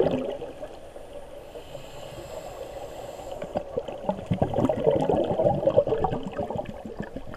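Scuba divers' exhaled air bubbling up from their regulators, heard underwater as crackling, gurgling bubbles. The bubbling grows louder about four seconds in and eases off near the end.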